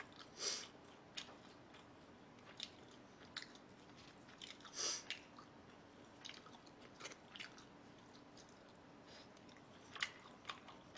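Close-miked eating sounds: soft chewing with scattered wet mouth clicks and smacks, and two brief hissy sounds, about half a second in and around five seconds in.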